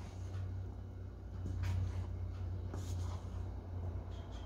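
Spatula stirring thick fruit cake batter in a stainless steel bowl, with scattered soft scrapes and knocks against the bowl's side. A steady low hum runs underneath.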